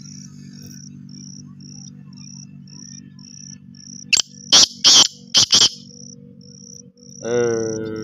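Black francolin calling: a quick run of five loud, harsh, grating notes about halfway through, over a cricket's steady high chirp pulsing about three times a second. Near the end a lower, held pitched sound comes in.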